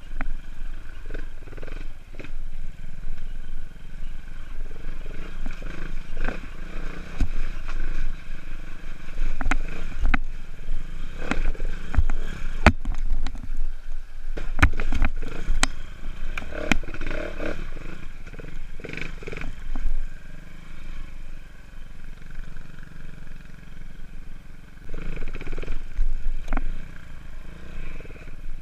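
AJP PR3 240 enduro motorcycle's single-cylinder engine running and revving up and down over rough, rocky ground, with frequent knocks and clatters from the bike striking rocks and roots. A cluster of hard knocks about halfway through comes as the bike tips over among the rocks, and the engine runs more quietly for a stretch later on.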